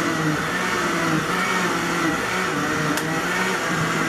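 Countertop blender running, pureeing canned peeled tomatoes to a smooth sauce; the motor's pitch wavers up and down as the load shifts.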